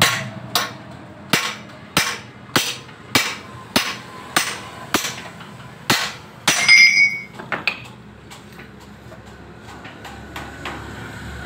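A hand hammer striking the steel frame of a Honda CD70 motorcycle to straighten it after accident damage. About a dozen sharp blows land at an even, brisk pace, nearly two a second. The last one is louder and rings on. The blows stop about two thirds of the way through.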